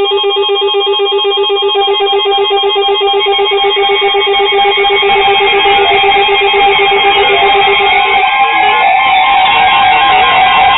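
Weather alert radio alarm sounding for an incoming warning: loud electronic tones that warble rapidly between pitches, with a pulsing beep that stops about eight seconds in and a rising sweep near then.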